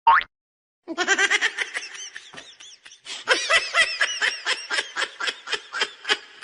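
A person laughing hard in rapid high-pitched bursts, about four or five a second, after a brief rising squeal right at the start.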